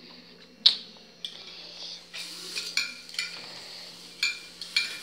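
Metal utensils clinking and scraping on a dish while meat is handled: one sharp clink about two-thirds of a second in, then a string of lighter, ringing clinks through the second half.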